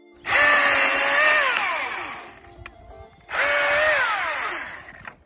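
Milwaukee M18 Fuel cordless chainsaw run twice. Each time the motor comes up with a high whine that holds steady for about a second, then falls in pitch and fades as the chain winds down.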